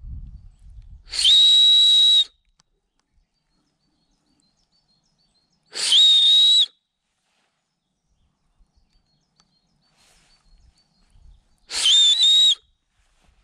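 A person whistling with the lips to call a dog back: three loud, high whistles a few seconds apart, each about a second long, the last one broken briefly in the middle.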